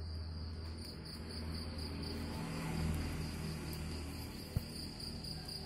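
Crickets chirping steadily in a high, evenly pulsing trill over a low, steady rumble, with a single sharp click about four and a half seconds in.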